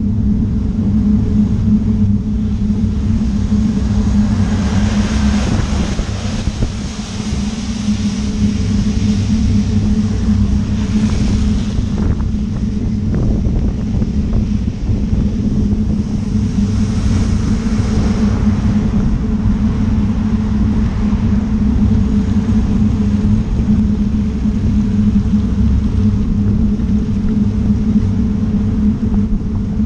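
Steady low rumble of wind and road noise on a bicycle-mounted camera, with the hiss of car tyres on the wet road swelling three times as vehicles pass.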